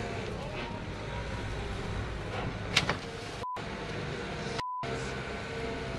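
A cabin cruiser's hull gives one sharp knock against another boat a little under three seconds in, over the steady low rumble of boat engines and wind. Two short one-pitch beeps follow, each cutting out the rest of the sound, like censor bleeps.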